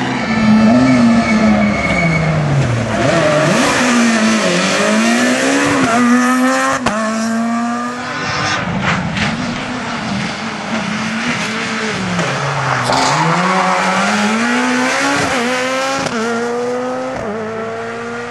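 Ford Fiesta S2000 rally car's naturally aspirated 2.0-litre four-cylinder at full throttle, revving high and shifting rapidly up through the gears, with the engine note falling away into corners and climbing again out of them. About eight seconds in there is a short burst of tyre and gravel noise.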